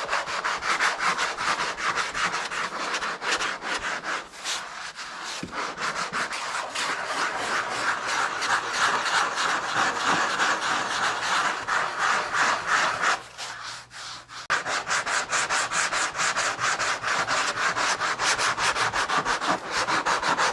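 80-grit sandpaper rubbed back and forth by hand over a thin 1/16-inch wood patch, sanding it flush: fast, even strokes, pausing briefly about thirteen seconds in.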